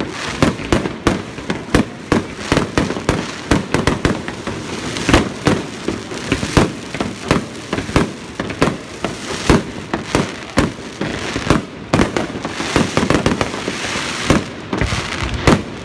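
Fireworks going off in quick succession: a continuous string of sharp bangs, several a second, with crackling between them.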